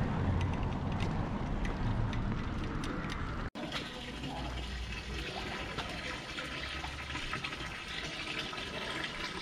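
Water from a stone street fountain's spout pouring steadily into its basin, splashing, heard after a sudden break about a third of the way in.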